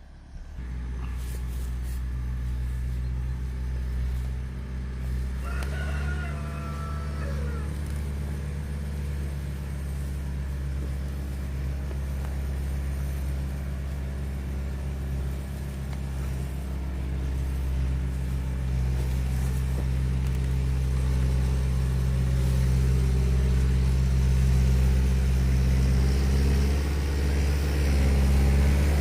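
An engine starts up and runs steadily, growing louder over the last few seconds. A rooster crows once about six seconds in.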